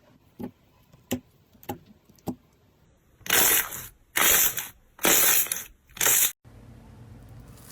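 Slime being worked by hand, with four short, sharp clicks and then four longer crackling squeezes in a steady rhythm, about one a second, in the second half. The sound changes abruptly to a low steady background near the end.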